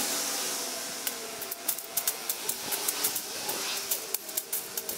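Irregular sharp snaps and crackles of twigs and branches as overgrown brush is cut and pulled back. Behind them is a faint engine drone whose pitch drifts.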